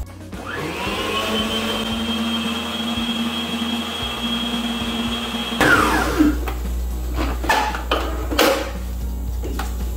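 Electric stand mixer beating brownie batter: the motor spins up with a rising whine, runs steadily for about five seconds, then winds down as it is switched off. A few knocks and clatters follow.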